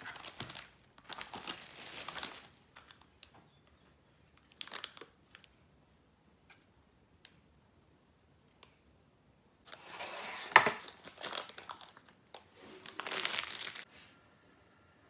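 Plastic cling film and baking paper crinkling and rustling as they are peeled back and lifted, in several bursts, with a few light ticks in between.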